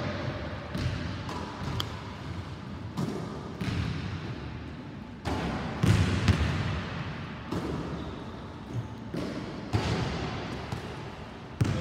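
Basketball bouncing on a hardwood gym floor between jump shots: irregular thuds every second or so, each echoing in the large gym.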